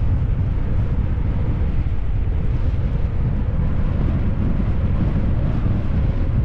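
Steady wind rush buffeting an action camera's microphone on a bicycle coasting fast downhill, a loud low rumble with no breaks.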